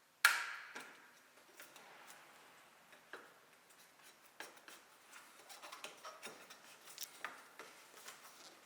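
A sharp metallic clank about a quarter second in that rings briefly, then scattered small clicks and taps as roof rack crossbar hardware is handled and fitted.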